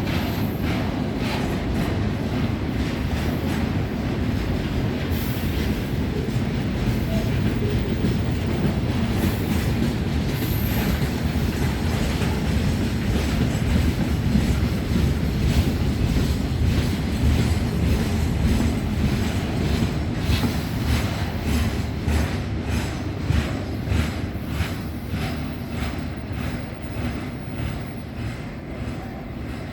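Freight train wagons rolling past on the rails: a steady heavy rumble with rapid clicks of wheels over rail joints. It fades away near the end.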